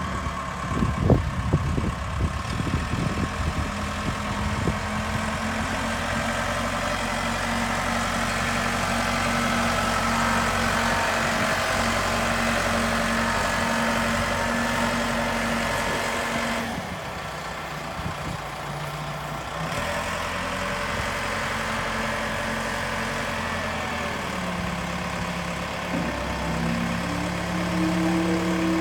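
Case 580 Super M backhoe's diesel engine running steadily, with a few knocks in the first couple of seconds; a little past the middle the engine note drops and quietens for a few seconds, then picks up again.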